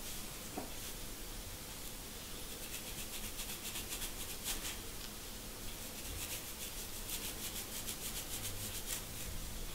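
Fine-toothed plastic comb scratching across a dry, dandruff-flaked scalp in quick repeated short strokes, lifting the flakes. The strokes come thickest in the second half.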